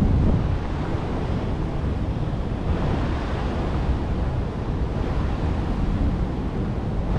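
Wind noise on the microphone: a steady low rumble, with a brighter hiss swelling about three seconds in.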